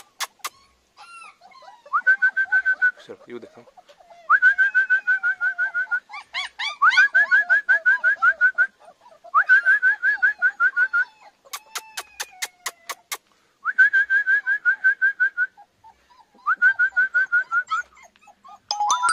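A bird singing in repeated trilled phrases. Each phrase is a fast run of high notes lasting one to two seconds, and there are six with short gaps between. Twice, a rapid train of sharp clicks comes in between phrases, at the very start and again about twelve seconds in.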